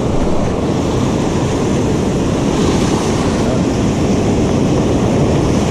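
Ocean surf breaking and washing up the shore in a steady rush, with wind buffeting the microphone.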